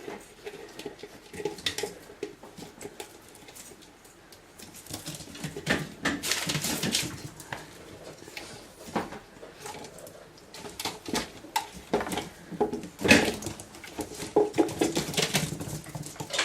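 Six-week-old Boston Terrier puppies at play: plastic Tupperware containers clatter and knock irregularly while the puppies make small dog noises as they tussle over them. The clattering is busiest about six seconds in and again near the end.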